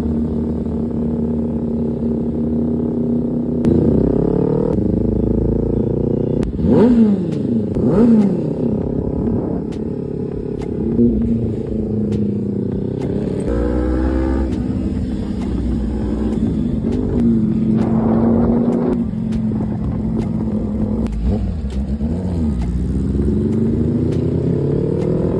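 Kawasaki Ninja ZX-10R's inline-four engine running as the bike is ridden slowly, the throttle blipped every few seconds so the note rises and falls, with two quick sharp revs near the middle.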